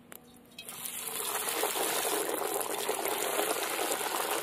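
Two breadcrumb-coated loitta (Bombay duck) fish fry pieces going into hot oil in a metal kadai: the oil breaks into a steady, dense sizzle of deep frying, building up about half a second in and holding.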